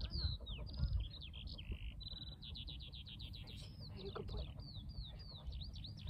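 A small songbird singing a long, varied song of quick descending whistled notes and fast trills, over a low rumble of wind on the microphone.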